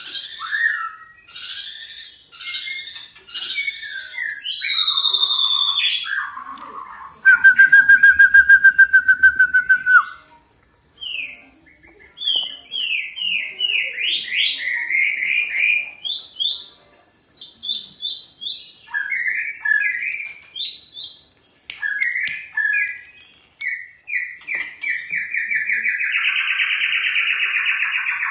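White-rumped shama (murai batu) in full, lively song: a continuous string of varied whistled phrases, with a fast trill held on one pitch for about three seconds a quarter of the way in.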